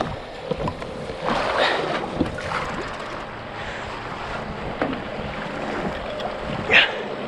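Sea water sloshing and splashing against the side of the boat, with wind buffeting the microphone; a louder rush of water about a second and a half in and a short sharp splash near the end.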